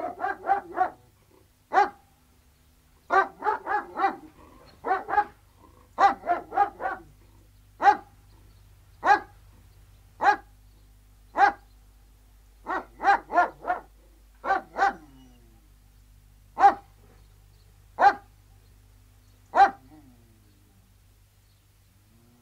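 Three Alsatian (German shepherd) guard dogs barking. They give quick volleys of several barks in the first half, then slower single barks with a short volley in between.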